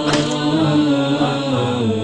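A man's voice chanting unaccompanied in long, held melodic notes.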